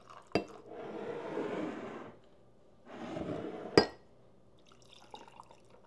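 Kefir water poured from a glass mason jar into a glass of ice, in two pours of about a second and a half and one second, followed by a sharp knock just before four seconds in.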